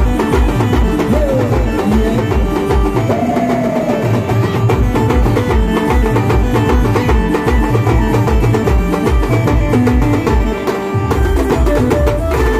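Live band music for dancing: large bass drums pounding about four beats a second under a sustained melody line. The low drum beats drop out for a moment about ten seconds in, then come back.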